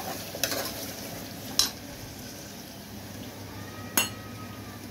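Mutton with ginger-garlic paste sizzling in an aluminium pressure cooker while a steel ladle stirs it, with a few sharp metal clinks against the pot. The last clink, about four seconds in, rings briefly.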